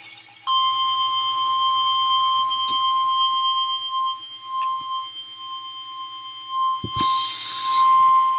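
NOAA Weather Radio warning alarm tone: a single steady, high 1050 Hz beep that starts about half a second in and holds, marking the start of a new tornado warning broadcast. A short burst of static hiss with a crackle cuts across it about seven seconds in, over a faint low buzz of radio hum.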